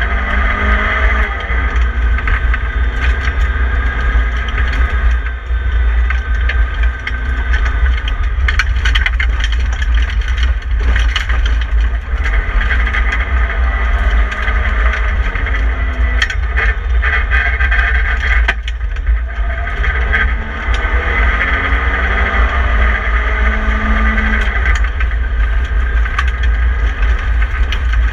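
BMW E30 318i rally car's four-cylinder engine heard from inside the stripped cabin, revving up and falling back as it is driven hard on a dirt stage, over a heavy rumble of road and wind noise. Sharp knocks and rattles from the gravel road and the bare shell run through it.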